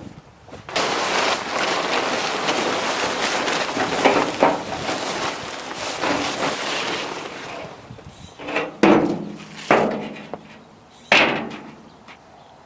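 Plastic tarps rustling and crumpling as they are dragged off a steel drum, then three or four sharp metal knocks as the drum's lid is handled.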